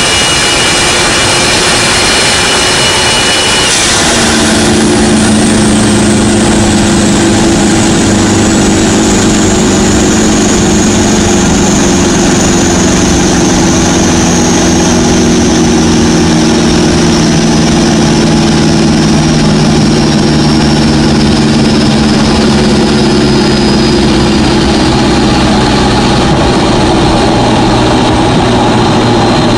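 Modified Toyota Innova's 1KD 3.0-litre turbodiesel four-cylinder heard from inside the cabin at highway speed. A high steady whistle stops about four seconds in, then the engine drone and a high whine slowly fall in pitch as the car slows from about 165 to about 110 km/h with the revs dropping.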